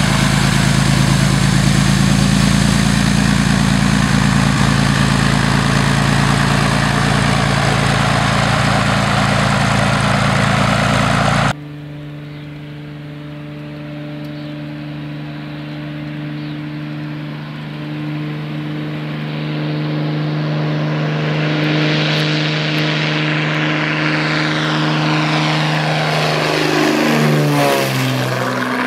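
Single-engine Cessna's piston engine and propeller running steadily on the ground. About 11 seconds in, an abrupt cut gives way to a light plane's engine at full power on a takeoff run, more distant and growing louder. Near the end it passes close overhead, its pitch dropping as it goes by.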